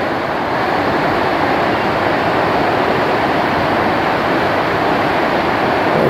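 Steady rushing of a big class IV whitewater rapid, churning over boulders.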